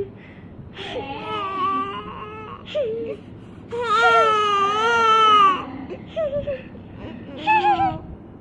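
Six-week-old baby fussing in short, complaining cries, the 'scolding' sounds her parents wait for. Several brief cries, then one long wavering cry about four seconds in lasting nearly two seconds, and a short cry near the end.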